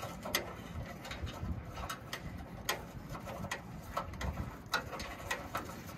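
Irregular light clicks and taps of hands working wires at the license-plate light housing in a 1964 Impala's chrome rear bumper, over a steady low rumble.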